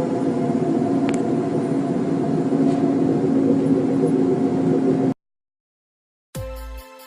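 Loud, steady droning hum with several held tones over a rough rumble, cutting off abruptly about five seconds in. After a second of silence, electronic music starts near the end.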